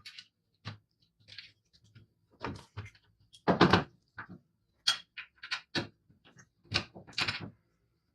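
A series of irregular clicks and knocks from hard parts being handled and fitted, the loudest a double knock about three and a half seconds in.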